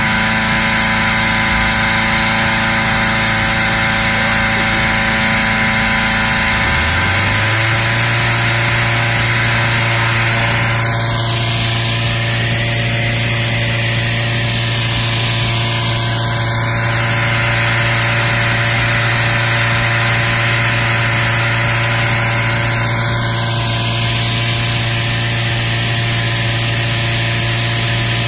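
Petrol-engined hot air balloon inflator fan running steadily, blowing cold air into the envelope; its engine note steps up to a higher speed about seven seconds in and then holds.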